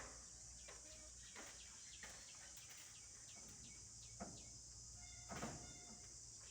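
Faint outdoor ambience: a steady high insect drone with a few soft bird chirps and several faint taps.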